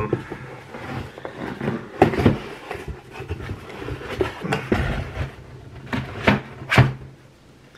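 Hands rummaging in a cardboard shipping box packed with glass hot sauce bottles: rustling with scattered sharp knocks, the loudest about two seconds in and near the end.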